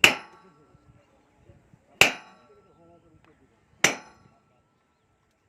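Hammer blows striking a steel rail, about one every two seconds, each with a sharp clang and a brief metallic ring.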